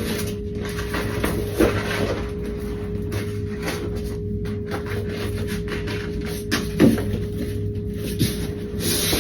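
A steady machine hum with a constant tone. Over it come a few short knocks and rustles of wallpaper being handled and pressed onto the wall.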